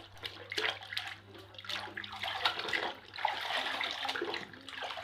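Water splashing and sloshing irregularly as a muddy toy car is washed by hand in clean water.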